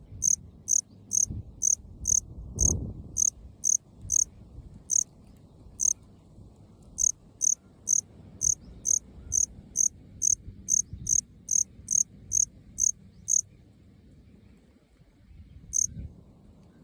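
Male Melanogryllus bilineatus cricket calling: a run of short, high chirps at about two a second, slowing briefly a few seconds in, then stopping near the end after one last chirp. A low rumble with a single thump runs underneath.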